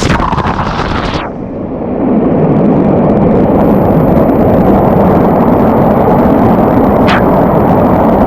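Rushing water of a mountain stream's waterfall and pool. About a second in, the hiss drops away and the sound turns to a muffled, heavy low rumble of churning water that runs on steadily, with a brief crackle near the end.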